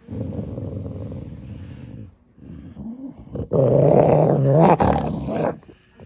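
Dog growling while guarding her chew bone from a reaching hand: a low steady growl, a short break about two seconds in, then a louder, higher snarl from about three and a half seconds in that stops shortly before the end.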